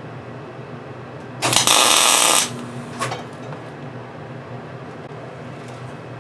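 Wire-feed MIG welder tack welding a clevis onto a hydraulic cylinder's rod end: a loud burst of arc noise about a second long, then a second, brief burst half a second later.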